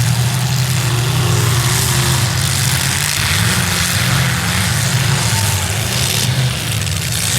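Demolition derby cars' V8 engines running together, their low drone rising and falling.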